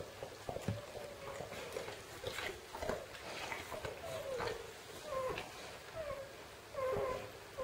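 Newborn puppies squeaking and whimpering while nursing, with many short high squeals one after another, several of them falling in pitch, and soft clicks among them.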